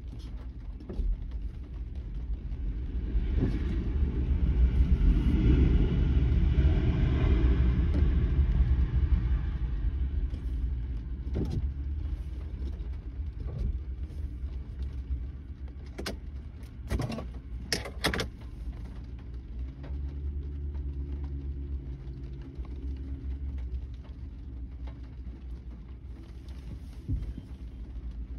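Rainy-day ambience heard from inside a parked car: a steady low rumble, with a car's sound swelling and fading from about three to ten seconds in. A few sharp taps of raindrops on the windshield come later.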